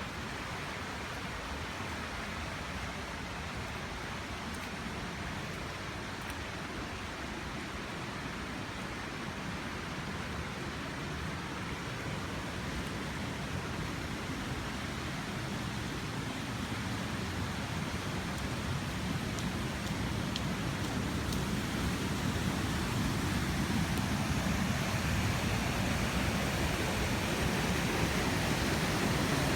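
Waterfall rushing as a steady, even noise that slowly grows louder toward the end.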